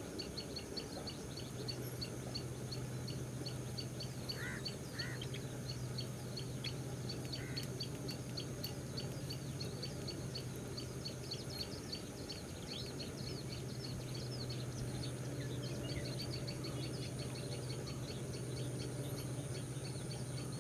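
Outdoor ambience of bird chirping: rapid high chirps keep on over a steady low hum, with two short separate calls about four and a half seconds in.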